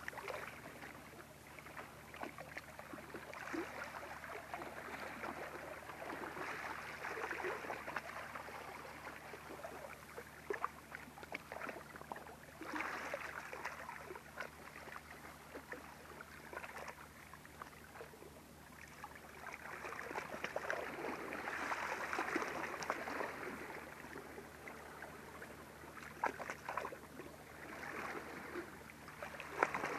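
Calm sea lapping gently, with small wavelets sloshing and trickling that swell and fade every few seconds and scattered small drips and clicks.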